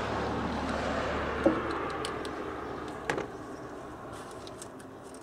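A few sharp metallic clicks from hand tools working the intake duct's hose clamp, about one and a half and three seconds in, over a steady background rumble and rush that fades away by about halfway.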